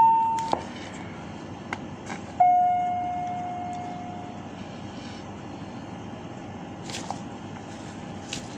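A short steady electronic-sounding tone that cuts off abruptly, then, a couple of seconds later, a single ringing tone that fades away over about two seconds, over a steady background noise with a few faint clicks.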